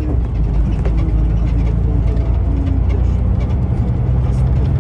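Interior noise of a moving Stagecoach coach heard from a passenger seat: a steady low engine and road drone.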